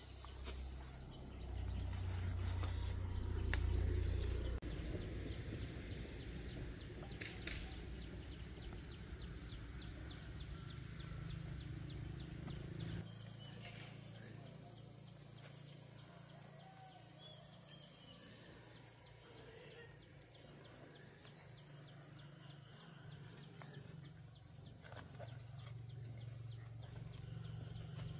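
Outdoor rural ambience: a steady high hiss with scattered bird chirps. There is a low rumble in the first few seconds and a quick run of ticking calls a few seconds later.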